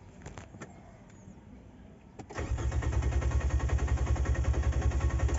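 2019 Nissan Almera's starter motor cranking the engine, which turns over in a steady, even rhythm but does not catch: a crank-no-start. The car has no fuel delivery because the hose on the fuel pump outlet is severed and leaking gasoline. The cranking begins about two seconds in, after a few faint clicks, and cuts off near the end.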